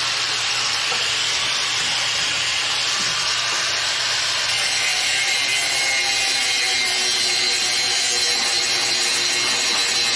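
Corded electric angle grinder running at speed and grinding on metal, with a steady high whine over a gritty hiss, as it cuts away stuck screws that could not be backed out.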